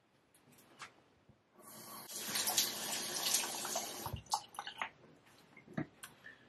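Tap water running into a bathroom sink for about two and a half seconds, then shut off, followed by a few splashes and small knocks.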